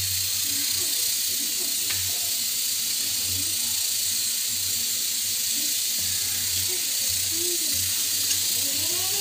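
A hand mixing fish pieces into a thick flour and spice coating in a steel bowl, under a steady hiss, with faint voices in the background.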